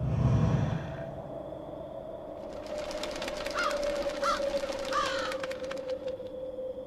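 Spooky sound-effect mix: a low boom at the start, a steady droning tone throughout, and from about midway dense crackling with three crow caws.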